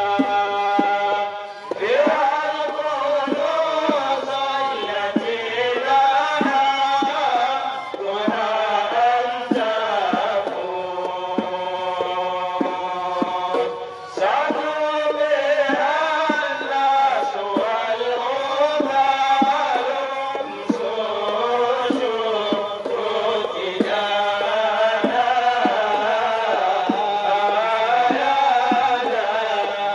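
Group of men chanting a samai Sufi song together, with a steady percussive beat of about two strokes a second. The singing breaks briefly twice between phrases, about two seconds in and near the middle.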